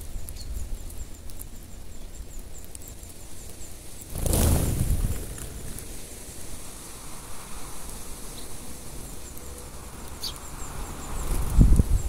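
Eurasian tree sparrows feeding on scattered seed, with faint high chirps. About four seconds in, much of the flock takes off together in a brief rush of wings lasting about a second. Several low thumps come near the end.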